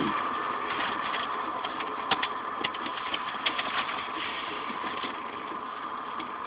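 A pickup truck's engine idling steadily, heard from inside the cab, with a few light clicks and knocks scattered through it.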